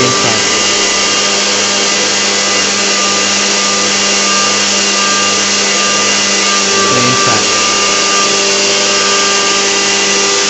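Homemade hovercraft's electric lift-fan motor running steadily, a constant whine over a rush of air as the craft floats on its air cushion.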